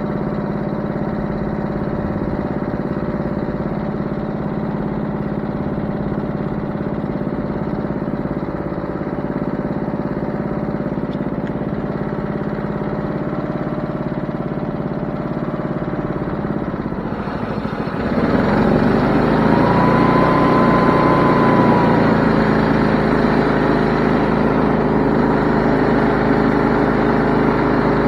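An engine running steadily; about 18 seconds in it gets louder and harsher, with a brief whine that rises and falls a couple of seconds later.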